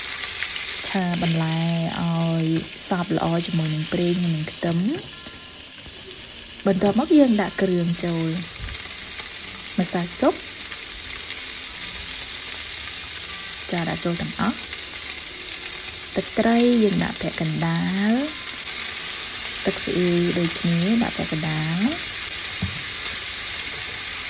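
Broccoli and carrot stir-frying in hot oil and garlic in a nonstick frying pan: a steady sizzling hiss that dips for a moment about five seconds in.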